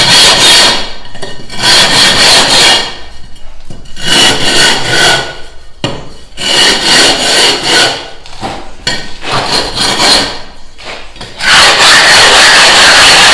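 Gypsum decorative-stone tile being rasped or sanded by hand in about five long scraping strokes, fitting its edge. About eleven seconds in, a steady, loud continuous noise takes over.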